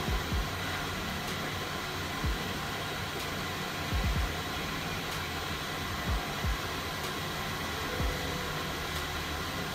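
Hot air rework station blowing steadily, heating a MacBook Pro logic board, with a few short low thumps from handling.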